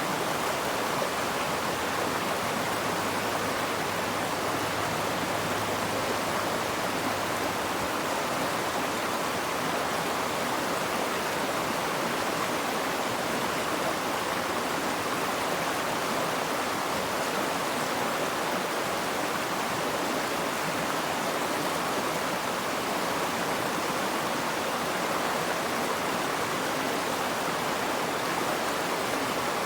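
Steady rush of running water: an even, unbroken hiss with no separate splashes or drops.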